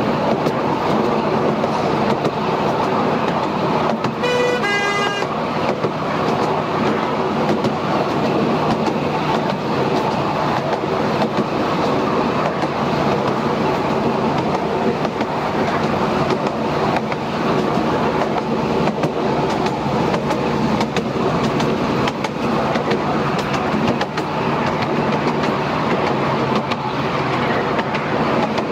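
Miniature railway train running steadily along the track, wheels rattling on the rails, heard from an open passenger carriage. A short toot of the train's horn sounds about four seconds in.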